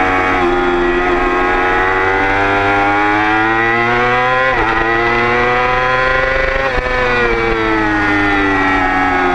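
Motorcycle engine at high revs on track, pitch climbing hard under acceleration, with a quick upshift about four and a half seconds in. It pulls up again, then the pitch falls steadily over the last few seconds as the bike slows for a corner.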